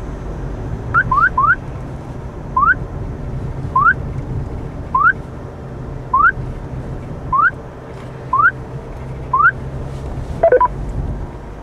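Stinger DSI radar detector sounding its alert: a short rising chirp, three in quick succession and then one about every 1.2 seconds, over the hum of the car's cabin. It is warning of a K-band radar signal at 24.157 GHz. Near the end a quick cluster of beeps sounds as a button on the unit is pressed.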